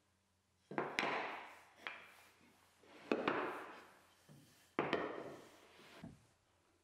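Strips of hardwood offcut being set down and shuffled on a perforated MDF workbench: three bouts, each a sharp wooden knock followed by about a second of scraping, roughly two seconds apart.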